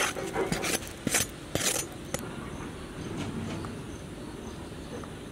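Steel spoon scraping and clinking against a steel plate while chopped tomato and onion are mixed, a handful of sharp scrapes in the first two seconds, then quieter.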